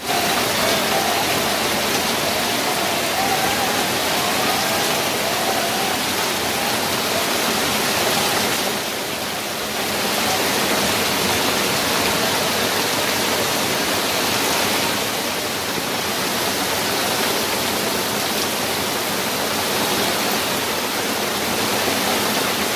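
Heavy rain pouring down, a steady dense hiss that eases slightly for a moment about nine seconds in.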